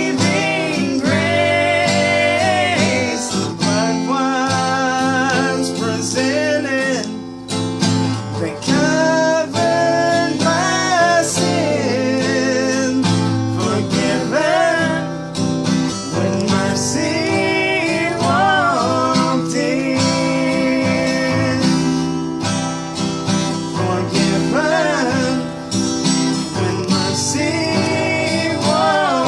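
A voice singing a slow melody with acoustic guitar accompaniment.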